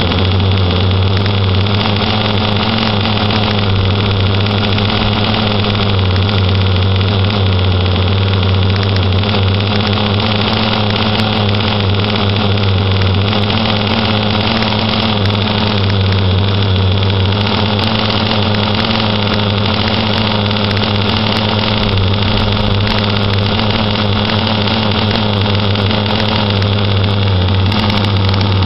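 Quickdraw 25HT two-stroke petrol engine in an RC catamaran boat running steadily out of the water, on its first run.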